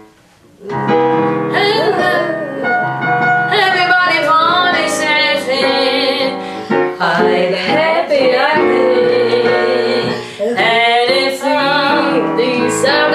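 A young woman singing a jazz song with piano accompaniment, the sung line sliding and bending in pitch. The music starts about half a second in, after a brief pause.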